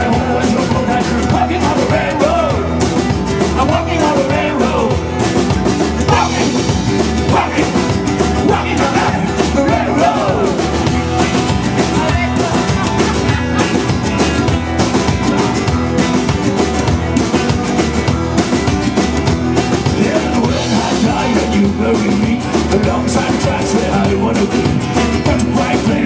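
Live band playing: acoustic guitar, upright bass and electric guitar over a steady drum beat.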